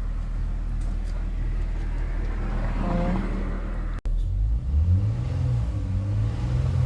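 Chrysler 300's 3.6-litre V6 running. It hums steadily, then after a sudden break about four seconds in, its pitch rises and falls as it is revved, now running again after a no-start, no-crank fault.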